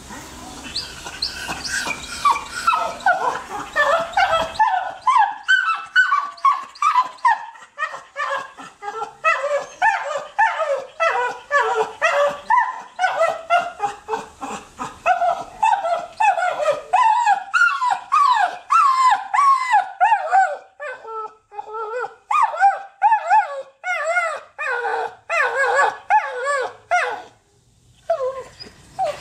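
Pit bull terrier in a wire kennel barking and whining in rapid, pitch-bending calls, about three a second, reacting to the sight of another dog. It breaks off briefly twice near the end. The trainer reads this as reactivity rather than out-and-out dog aggression.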